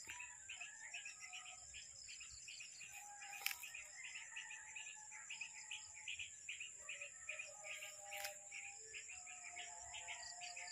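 Faint outdoor chorus of birds chirping over and over, several short chirps a second, with a steady high-pitched whine underneath. A couple of faint clicks come about a third of the way in and again later.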